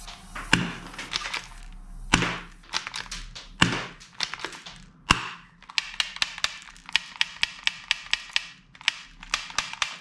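Toy handguns clicking as they are handled and worked: a few separate sharp clicks, then from about six seconds in a fast, even run of clicks, about five a second, lasting some three seconds.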